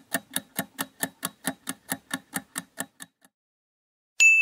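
Countdown timer sound effect: clock-like ticks about four to five a second, stopping about three seconds in. Near the end a single bright chime rings out briefly.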